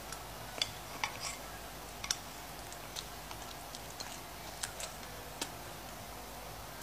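Eating sounds from a fried egg picked up with chopsticks: scattered soft, sharp clicks and smacks of chewing, with light touches of the chopsticks against the frying pan, about a dozen spread unevenly.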